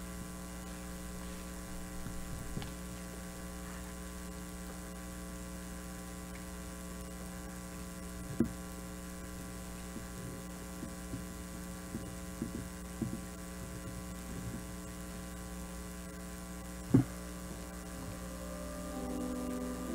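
Steady electrical mains hum with a few soft knocks and bumps; two louder knocks come about eight seconds in and near seventeen seconds.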